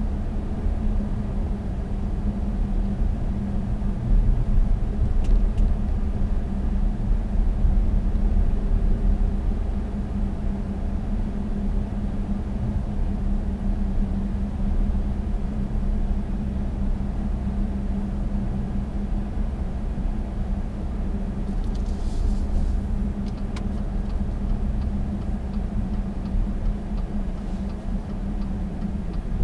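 Cabin noise of an Audi Q7 3.0 TDI under way: the V6 turbodiesel's steady low hum mixed with tyre and road rumble.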